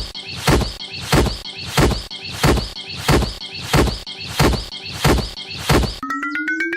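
Regular thumps, evenly spaced about two a second; about six seconds in they stop and a rising tone with fast ticking begins.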